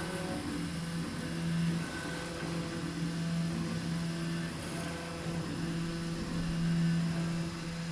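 Stepper motors of a MINGDA MD-666 large-format 3D printer whining as the print head moves during a print, a steady low tone that breaks off and shifts with each move, with higher tones switching on and off.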